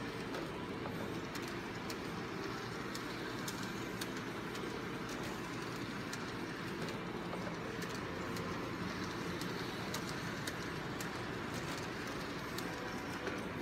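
Model train running on the loop of track around a Christmas tree: a steady hum with faint, irregular clicks.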